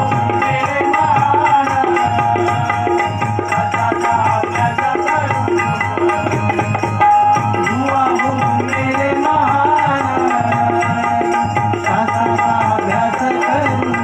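Bhajan accompaniment between sung lines: a tabla-type hand drum keeping a steady rhythm of about two strokes a second, under a held tone and a wavering melody.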